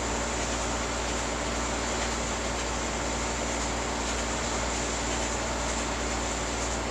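Steady, unchanging noise with a low hum underneath and no distinct events.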